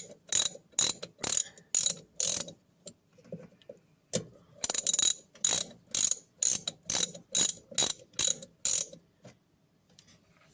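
Ratchet wrench with a small socket clicking as it is swung back and forth, about two strokes a second, undoing a tiny nut that holds a carbon brush on a washing machine motor. Two runs of strokes with a pause of about a second and a half between them, then it stops near the end.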